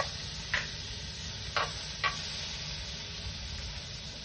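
Butter and minced garlic sizzling steadily in a nonstick frying pan, with a few short clicks of metal tongs stirring against the pan in the first two seconds.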